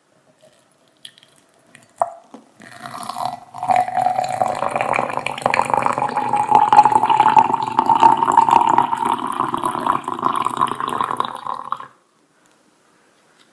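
Water poured in a steady stream into a tall drinking glass over two tea bags, the pitch of the pour rising as the glass fills, and cutting off cleanly near the end. A light tap comes just before the pour starts.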